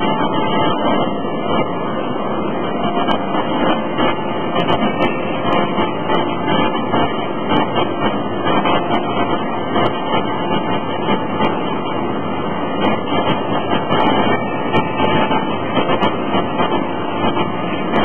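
Loud, steady machinery din of a forging shop: a dense rumble and hum that rises and falls only slightly, with no distinct hammer blows standing out.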